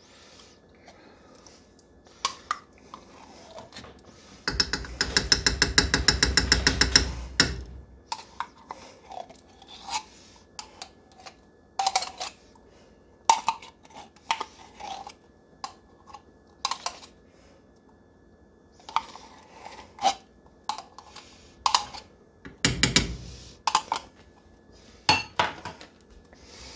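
Tomato paste being scraped and knocked out of a tin can into a pot with a spoon: clinks, knocks and scrapes of metal. A loud run of rapid scraping strokes comes about five seconds in and lasts some three seconds, with a shorter burst near the end.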